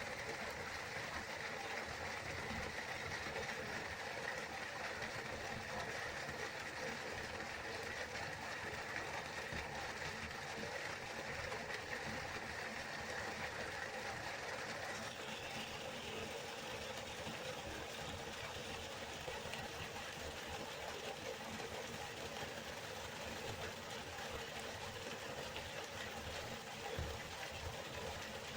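Steady rush of flowing river water, its tone shifting slightly about halfway through.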